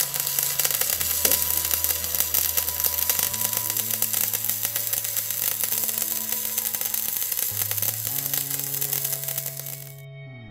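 MMA stick-welding arc on a 3.2 mm E6013 electrode at about 120 amps, fed by a Parweld XTS 142 inverter: a steady crackling sizzle that cuts off suddenly near the end as the arc is broken. Soft background music plays underneath.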